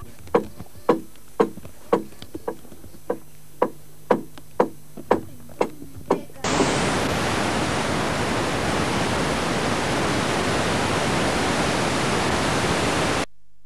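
Sharp knocks of tools striking the wood of a dugout canoe hull being carved, about two or three a second and unevenly spaced. About six seconds in they give way to a loud, even hiss of blank-tape video static, which cuts off suddenly near the end.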